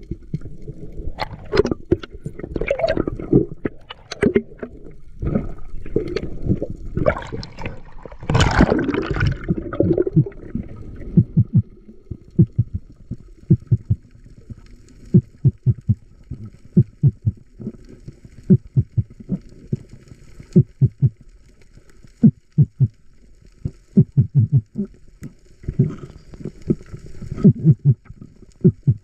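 Water rushing and gurgling around a camera in the sea for the first ten seconds or so. After that comes a run of short, soft, low thumps, several a second.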